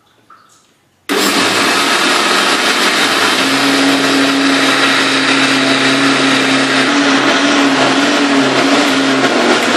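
Laxmi Hunk electric mixer grinder switching on about a second in and running steadily at high speed, wet-grinding soaked rice and chana dal with a little water into batter in its steel jar.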